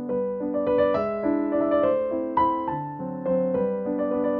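Background piano music: a melody of single notes, struck one after another, over held lower notes.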